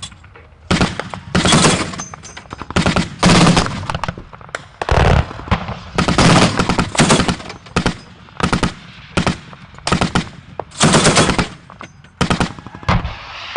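Machine-gun fire in short bursts, more than a dozen of them, following one another with brief pauses between.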